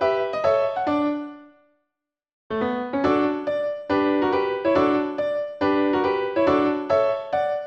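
Background music played on a piano-like keyboard: a rhythmic run of struck notes that fades out, breaks off into silence for under a second, then starts again.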